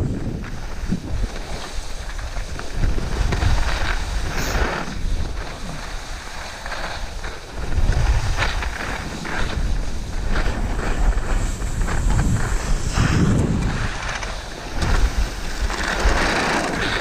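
Wind buffeting the camera's microphone during a fast ski descent, with the hiss and scrape of skis running over groomed snow, rising in several louder rushes.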